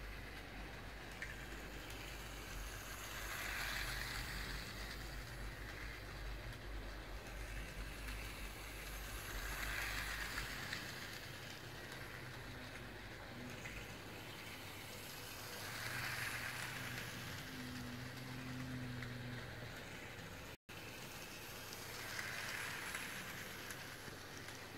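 Toy train rolling around its oval track, the running noise swelling and fading each time it passes, about every six seconds.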